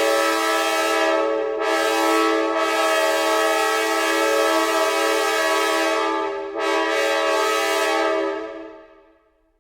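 Recreated sound of a Nathan K5LA five-chime train horn, as on MARC locomotive 4902: a long blast of the horn's chord that breaks briefly about one and a half seconds in and again around six and a half seconds, then fades out near the end.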